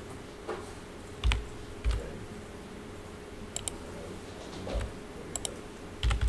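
Sparse computer keyboard and mouse clicks while working at a computer, some clicks in quick pairs. A few dull low thumps come in between, over a faint steady hum.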